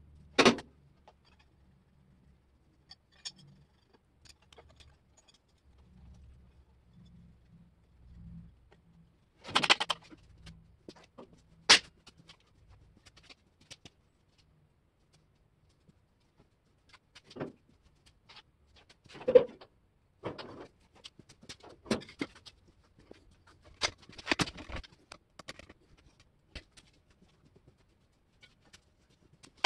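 Scattered knocks, clicks and clanks of parts and tools being handled in a shop, with a faint low hum for several seconds in the middle.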